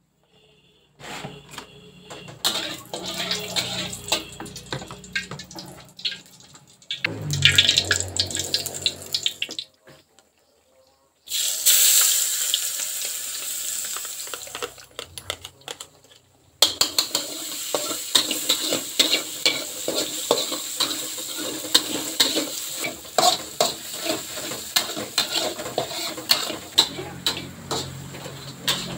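Cooking oil sizzling in a hot aluminium wok and frying pan, with a sharp burst of sizzling a little over a third of the way in as ingredients are tipped into the wok, fading afterwards. Metal utensils scrape and clink against the pans throughout. The sound cuts out briefly a couple of times.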